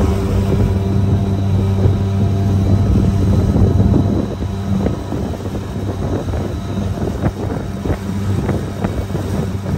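Boat motor running with a steady low hum, with water splashing and slapping against the hull. About four seconds in the hum eases and the splashing comes forward.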